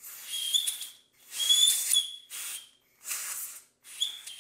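Compressed-air blow gun fired in four short blasts, each a hiss with a thin whistle, blowing the aluminium drill chips out of a freshly drilled bolt hole in the cylinder head.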